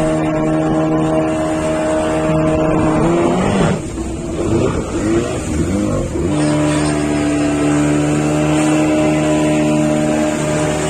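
Fishing boat's engine running steadily. About a third of the way in its tone rises, then wavers unevenly for a couple of seconds before settling back to a steady run at a slightly lower pitch.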